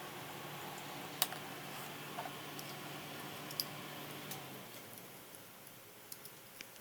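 About half a dozen light, isolated clicks and taps from handling small screws and a screwdriver against a metal hard-drive caddy, the sharpest about a second in. A low steady hum underneath stops about two-thirds of the way through.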